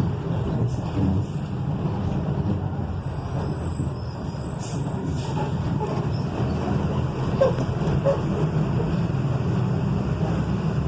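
Volkswagen 17.210 truck's diesel engine running with a steady low drone, with a faint high whistle for a couple of seconds near the start.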